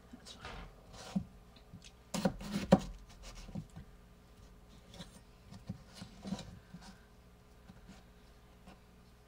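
Kitchen knife slicing through a raw potato and knocking on a plastic cutting board, with rubbing and handling sounds of the potato on the board; the loudest run of knocks comes about two seconds in, with fainter taps scattered after.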